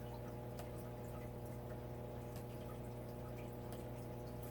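A steady low electrical hum with an even stack of overtones, under a few faint scattered clicks.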